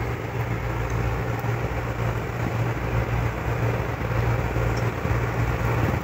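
Steady low machine hum with an even hiss over it, running without change.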